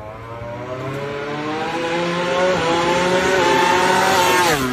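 A racing engine accelerating hard, rising in pitch with two brief dips, then falling away sharply near the end as it comes off the throttle.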